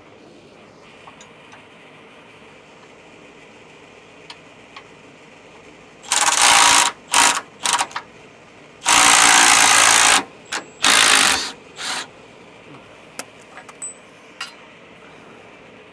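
Power tool run in a series of short, loud bursts, the longest about a second and a half, typical of a gun-type wrench spinning off fasteners under a truck.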